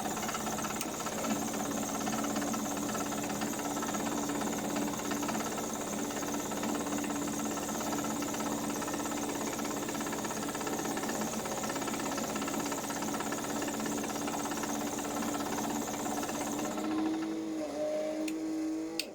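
Miele washing machine spinning at high speed: a steady loud whirring with a constant humming motor tone. Near the end the hiss thins out and the sound then stops abruptly.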